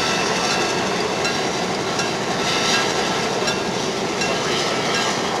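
EMD E8 diesel locomotive's two 567B 12-cylinder engines running steadily.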